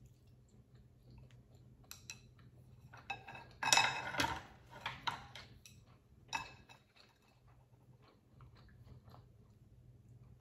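Chopsticks and a spoon clinking and clattering against the dishes and the stone stew pot. The loudest clatter comes about four seconds in, with a few lighter clinks after it and faint chewing in between.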